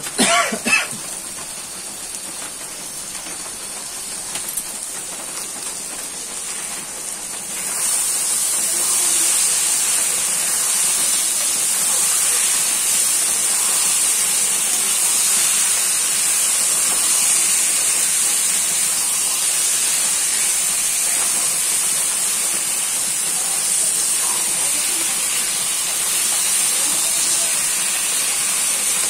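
Raw chicken pieces frying in hot oil and masala in a kadai: a steady sizzle that turns louder about eight seconds in as the pieces are stirred with a spatula. A brief loud pitched sound at the very start.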